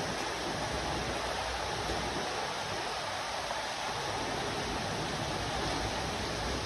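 Steady, even rush of falling water.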